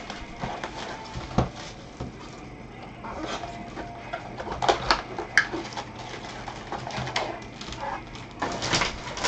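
Gloved hands opening foil packs of Bowman baseball cards and handling the cards: irregular crinkling and rustling with scattered small clicks.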